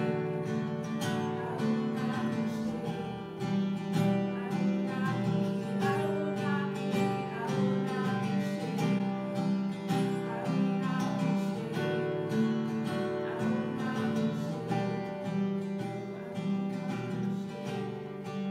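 Acoustic guitar strummed steadily, with a woman singing a Christian worship song over it.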